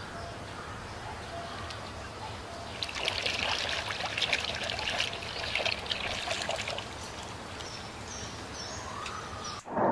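Water splashing and sloshing as a hand swishes a plastic toy around in a tub of soapy water, growing louder about three seconds in.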